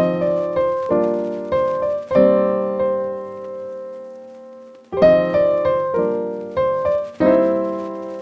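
Background music: a solo piano plays slow chords that ring out and fade, pausing briefly in the middle before the next phrase.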